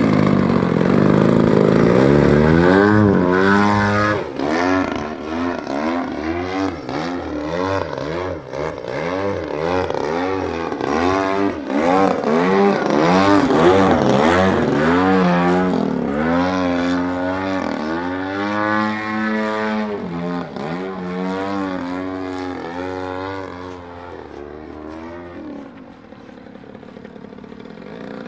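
DA-60 single-cylinder two-stroke gas engine of an 87-inch Extra 300 RC aerobatic plane, turning a 24x9 carbon propeller. It is loud at first, then rises and falls in pitch again and again as the plane flies its manoeuvres, and grows fainter near the end as it moves further off.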